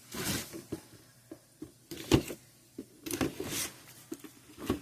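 Cardboard and plastic toy packaging being handled: scattered rustles and light knocks, with one sharp tap about two seconds in.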